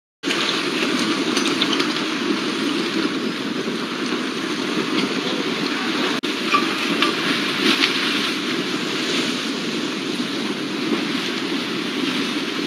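Debris flow of mud and rocks sliding over a road: a steady, heavy rushing noise with scattered sharp knocks of stones.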